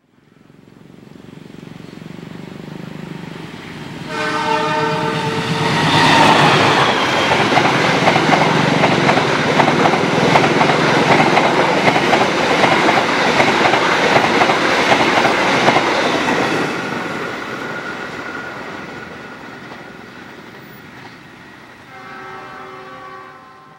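A CC 206 diesel-electric locomotive hauling a passenger train. Its horn sounds for about a second and a half, about four seconds in, then the train passes with a loud, rapid clickety-clack of wheels over the rail that slowly fades away. Another horn blast comes near the end.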